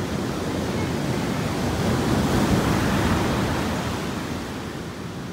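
Ocean surf on a black sand beach of fine pebbles: a wave washing in, swelling to its loudest about halfway through, then easing off.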